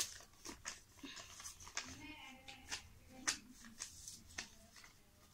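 Sheet of paper crinkling and rustling in short separate crinkles as it is folded and creased by hand.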